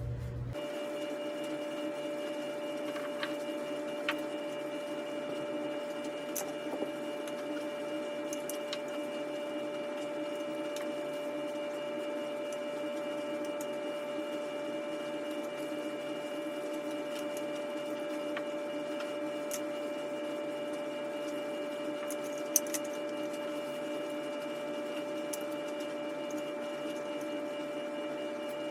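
A small electric power tool motor running at one steady speed with a constant whine, with a few light clicks and one sharp tap about three-quarters of the way through.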